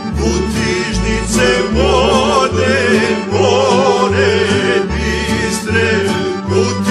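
Serbian patriotic song playing: several singers holding wavering, vibrato-laden notes over instrumental accompaniment, with a bass line that steps to a new note about once a second.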